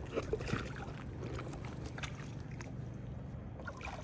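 Lake shallows softly sloshing and splashing as hands reach into the water, with a few small splashes near the end as a stone is lifted out.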